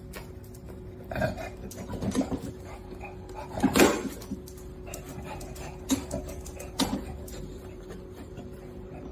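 A dog making a few short sounds, the loudest about four seconds in, over a faint steady hum.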